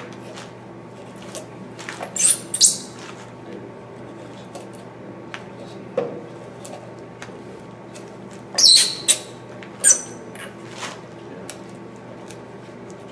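Hand gouge cutting chips from a white cedar decoy body: a few short, crisp slicing strokes, two a couple of seconds in and a quick cluster of three about two-thirds through, with fainter ticks of tool against wood between them, over a steady low hum.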